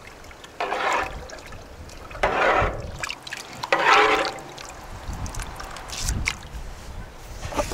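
Water poured out in three short bursts about a second and a half apart, followed by a few soft knocks.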